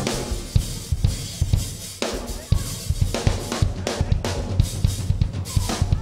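Drum kit playing a steady beat on bass drum, snare and cymbals, with low, sustained notes underneath, as part of live praise music.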